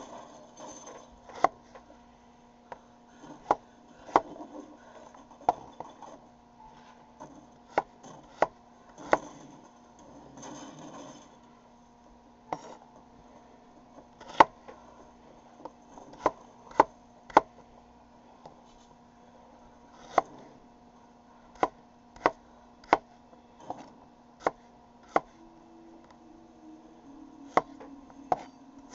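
Kitchen knife chopping an onion on a wooden cutting board: single sharp knocks of the blade on the board, unhurried and unevenly spaced, roughly one a second.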